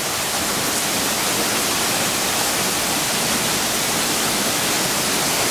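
Torrential downpour: heavy rain and floodwater rushing down the street together make a steady, dense hiss.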